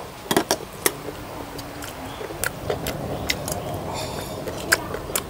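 Eating at a table of fried chicken tails: an irregular run of sharp clicks and taps, about a dozen over a few seconds.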